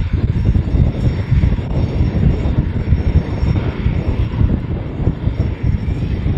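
F-16 fighter's single turbofan engine running at low taxi power as the jet turns slowly on the runway: a steady, heavy low rumble with a hissing haze above it.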